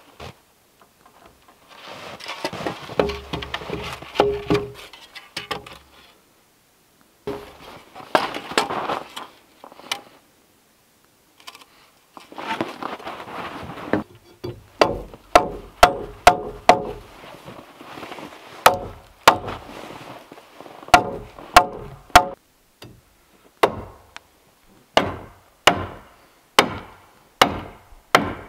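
Hand-tool blows against a log: sharp, ringing strikes from about halfway through, in quick runs of about four with short pauses between. Before that come softer scraping and handling sounds of timber being worked.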